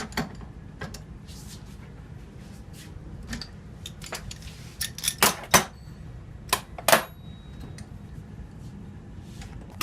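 Metal tools and parts clicking and clinking while the electromagnetic clutch is being taken off an air-conditioning compressor. Light scattered clicks throughout, with a few sharper metallic clinks around the middle, the loudest three in quick succession at about five and seven seconds in.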